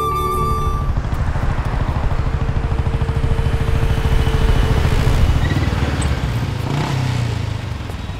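Motorcycle engine running at a low, even beat as the bike approaches, easing off near the end as it slows. A held music note fades out about a second in.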